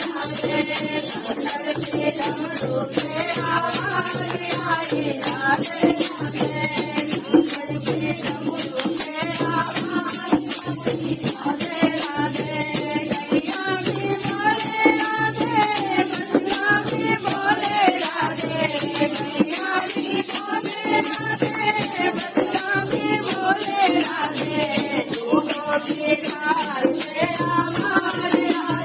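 Hindu devotional bhajan to Shiva, sung with a shaker-type rattle keeping a fast, even beat over a steady drone.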